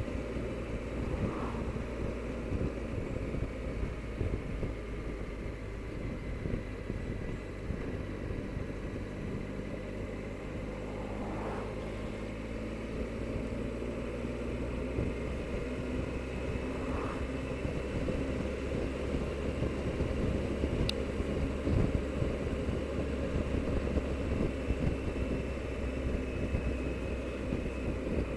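Triumph Explorer motorcycle's three-cylinder engine running at road speed under heavy, steady wind rush on the microphone, with a faint whine that drifts slowly up and down in pitch.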